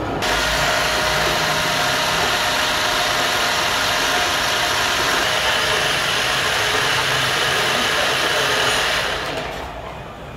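Gear hobbing machine running, a steady mechanical whir and hiss with one held tone through it. It starts abruptly and fades out near the end.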